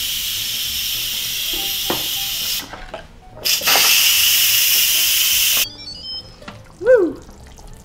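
Instant Pot Smart's steam release valve hissing loudly as the remaining low pressure is quick-released, the jet cutting out briefly about two and a half seconds in, coming back, and stopping just under six seconds in. Then a few light clicks as the lid is turned open, and a short rising-and-falling tone near the end.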